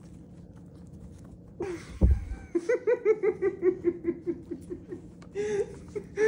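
A man laughing in a quick run of short laughs, about four or five a second, starting about two and a half seconds in and coming again near the end, after a dull thump about two seconds in.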